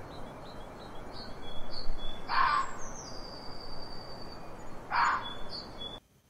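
Fox calling: short harsh cries repeated about every two and a half seconds, over birds chirping and a steady background hiss. The sound cuts off suddenly near the end.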